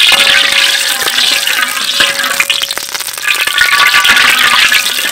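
Hot oil sizzling in a wok, with a few sharp clicks of a metal spatula against the pan.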